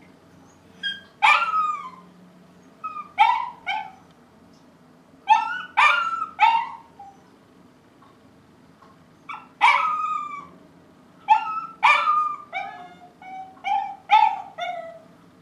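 Dog barking repeatedly in groups of two or three barks with short pauses between, the last few barks near the end shorter and lower. This is the persistent, all-day barking of a nuisance dog.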